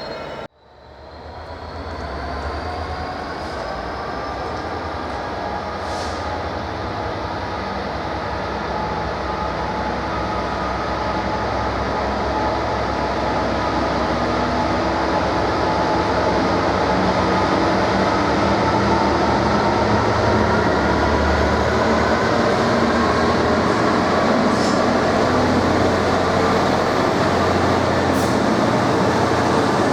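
Train running, growing steadily louder, with a whine that slowly rises in pitch.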